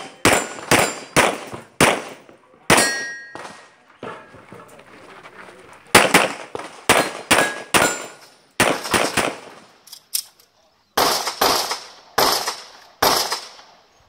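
Rapid 9mm pistol fire from a Glock 34 shooting a practice stage, about twenty shots in quick strings, with a pause of about three seconds after the first five. Some shots are followed by the brief metallic ring of a struck steel target.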